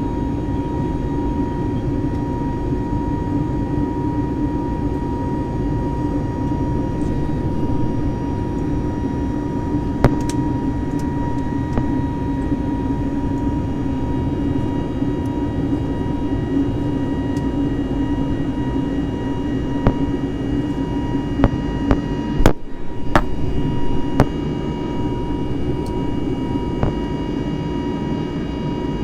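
Steady drone of jet engines and airflow heard inside an Airbus A320 airliner cabin, with a few steady high tones over it. A few light clicks come in the second half, and the sound drops out for a split second a little over 20 seconds in.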